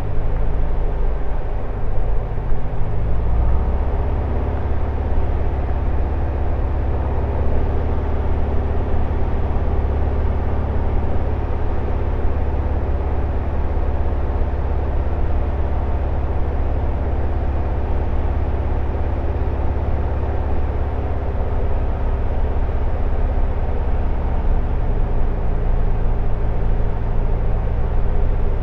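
Single-engine propeller plane's piston engine and propeller droning steadily inside the cockpit on the landing approach. The engine note shifts slightly in pitch about three seconds in and again after about twenty seconds.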